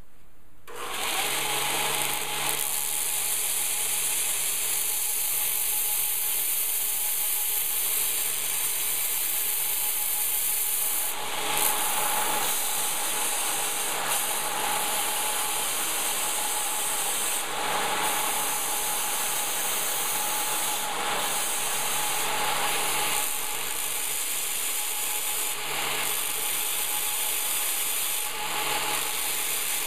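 A 2x72 belt sander with an 80-grit Norzon belt grinding a 16-gauge mild steel buckle blank: a steady hiss of abrasive on steel over a low motor hum. It starts about a second in and swells and eases a little as the piece is worked against the belt.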